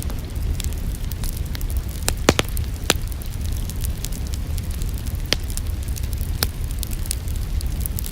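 Wood fire in a fireplace crackling: scattered sharp pops and snaps, a few louder ones about two to three seconds in, over a low steady rumble of the flames.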